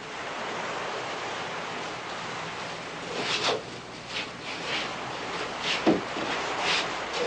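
A steady wash of noise like the sea, with several short rustles and knocks from about three seconds in as a ribbon-tied gift box is handled and opened.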